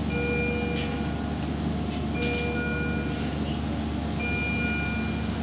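Hospital equipment alarm sounding a repeating electronic chime of steady high tones, each about a second long, coming back about every two seconds over a steady low machine hum.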